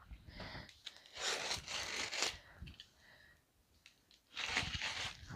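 A box cutter's blade slitting packing tape along the seams of a cardboard box, in three scraping strokes with a pause of a second or so before the last.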